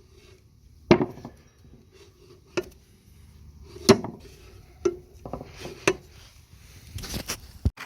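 Several separate knocks and clinks at irregular intervals, like metal tools or parts being handled and set down on a hard surface.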